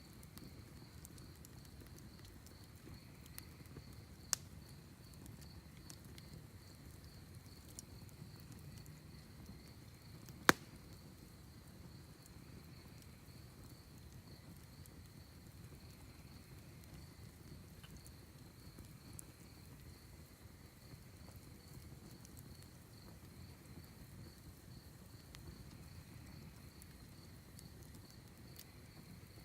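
Crickets chirping in a steady, evenly pulsing high trill over the faint low rumble of a wood campfire, with scattered small crackles; the fire gives one sharp pop about ten seconds in and a smaller one about four seconds in.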